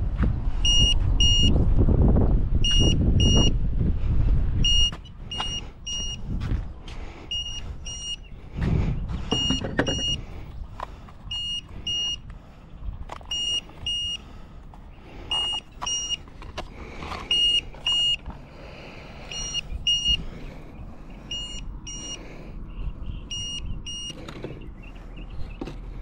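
An electronic alarm beeping in short double beeps, a pair every one and a half to two seconds. Heavy wind rumble on the microphone covers the first five seconds, then handling clicks and rustles.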